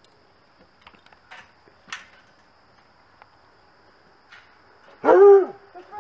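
A dog gives one loud, short bark about five seconds in, after a few faint clicks and rustles.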